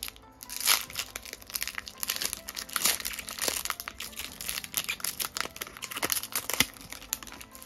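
Foil wrapper of a Pokémon Battle Styles booster pack being torn open and pulled apart by hand: a run of crinkling and tearing crackles, with a few louder rips.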